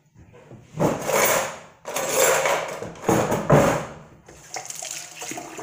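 Kitchen handling noises: three or four bursts of scraping and rubbing, about a second each, as cookware and utensils are moved about on the counter.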